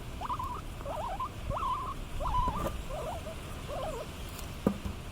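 Guinea pigs making a run of short, wavering squeaky calls, one after another for about four seconds, followed by a single sharp click near the end.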